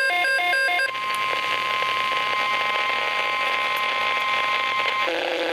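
NOAA Weather Radio warning alarm tone: a steady single high tone of about 1050 Hz over radio static, signalling an incoming alert. A pulsing, multi-tone electronic beep pattern on top of it stops just under a second in, and the tone cuts off near the end.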